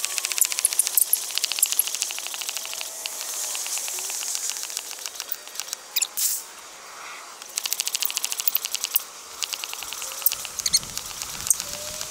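Hand-operated stand-up air pump inflating the top air chamber of an inflatable paddleboard: a dense run of rapid clicks and squeaks with hisses of air, breaking off briefly a couple of times.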